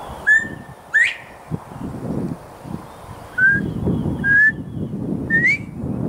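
Male northern bobwhite giving its whistled 'bob-white' call twice. First comes a short level note and then a sharply rising one. Near the end it calls again, this time with two short level notes before the rising final note. This is the male's advertising call, which the uploader takes for a mating call.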